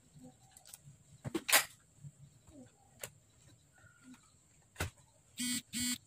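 Plastic top case of an Asus X541U laptop being lowered and pressed onto its base: a quick cluster of clicks and knocks about one and a half seconds in, a couple of single taps later, then two short buzzing sounds near the end.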